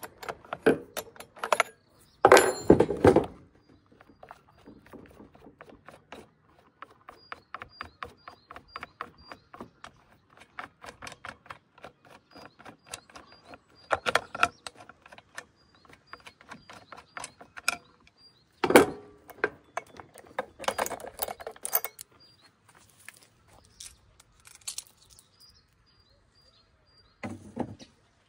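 Metal clicks, clinks and knocks as a Stihl MS 261 C chainsaw is taken apart by hand: the bar nuts are undone with the combination wrench, the side cover comes off and the chain is worked off the guide bar. A long run of quick light clicks fills the middle, with louder knocks about two seconds in and again near two-thirds of the way through.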